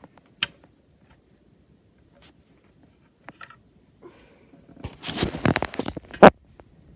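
Computer hardware parts being handled and pried at by hand: a few scattered small clicks, then a burst of rapid clicking and scraping about five seconds in, ending in one loud sharp click.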